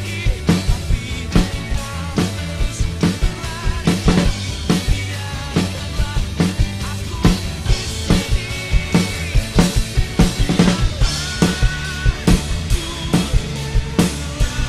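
Acoustic drum kit played live in a driving beat, with kick drum, snare and cymbal hits, over a drumless backing track of a pop-rock song.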